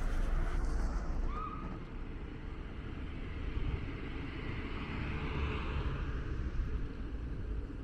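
Wind rumbling on the microphone over street traffic, with a vehicle passing that swells and fades in the middle.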